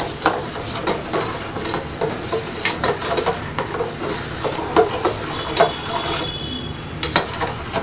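A steel ladle stirring and scraping milk in a stainless steel saucepan, with irregular clinks of metal on metal against the pan, over a steady hiss. The milk is being boiled down and is stirred to keep it from sticking to the bottom.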